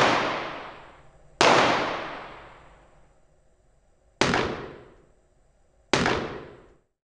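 Four gunshots, each a sharp crack followed by a long reverberant tail; the first two ring on for over a second, the last two die away sooner.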